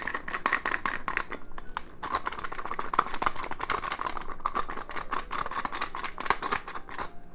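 Pepper mill grinding black peppercorns: a continuous run of quick, dry crackling clicks.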